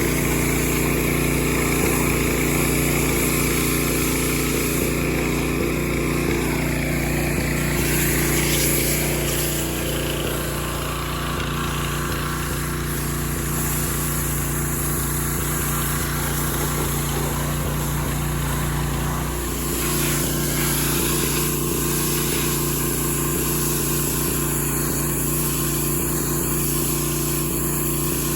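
Small gasoline engine running steadily at a constant speed, with a steady high hiss over it.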